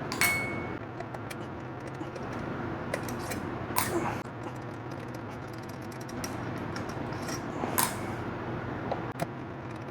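Small metal clicks and clinks of screws being taken out of a screen's heat sink and dropped into a metal magnetic parts bowl. A few sharp clinks come about four seconds apart; the first rings briefly.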